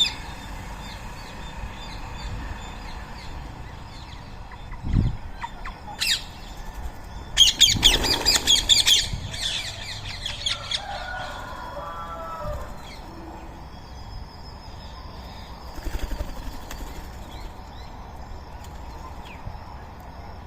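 Birds, rose-ringed parakeets among them, flapping and calling, with chirping throughout. About seven seconds in there is a dense flurry of wingbeats and harsh shrieks lasting a second or two, and a single dull thump comes about five seconds in.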